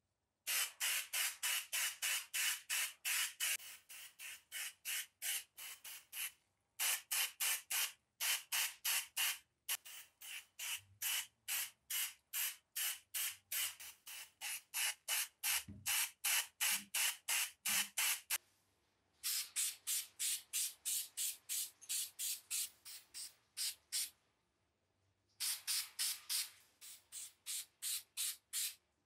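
Aerosol spray-paint can sprayed in short, rapid bursts of hiss, about three a second, with a few brief pauses between runs.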